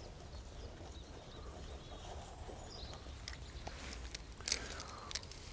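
Quiet outdoor background: a steady low rumble with a few faint scattered clicks and light rustles, the sharpest click about four and a half seconds in.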